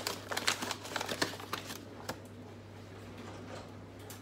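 Plastic bag of sugar being handled and opened, crinkling in quick crackles for about the first two seconds, then dwindling to a few faint ticks.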